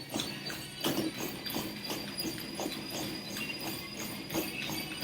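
Running footfalls landing on a treadmill belt in a quick, even rhythm, over a steady high-pitched whine.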